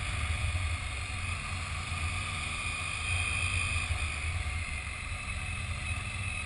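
Motorcycle running steadily along a road, its engine a low rumble under gusty wind noise buffeting the microphone.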